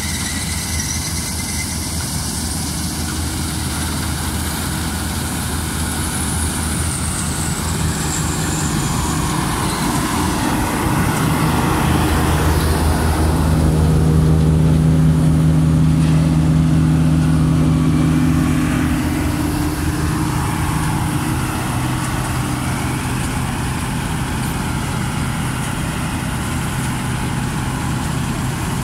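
New Holland 8070 combine harvester running steadily as it cuts and threshes a rice crop, a continuous engine and machinery drone. It grows louder from about eleven seconds in and is loudest for several seconds in the middle, when the machine is close behind, then eases off again.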